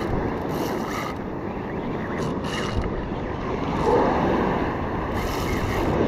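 Wind buffeting the microphone over surf breaking on the shore, a steady rushing noise. Short bursts of whirring come from a Daiwa Saltiga 14000 spinning reel being cranked hard while fighting a hooked fish.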